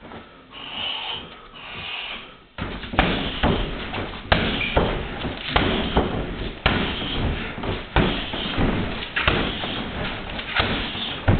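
Shin kicks thudding into a freestanding heavy bag with a water-filled base: a string of heavy thuds, roughly one a second, starting about two and a half seconds in.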